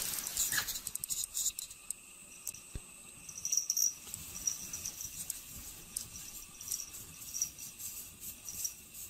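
A cat pawing and scratching at a wall of packed snow: faint crisp scratching and crunching, with short high jingles every second or so after the first few seconds.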